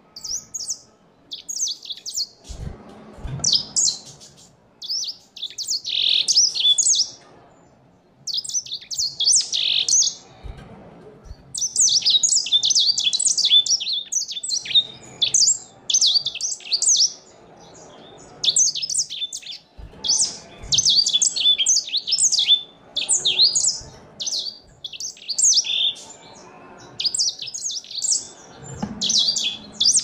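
Grey singing finch singing: fast, high twittering phrases of one to three seconds, broken by short pauses, with a few soft low thumps between them.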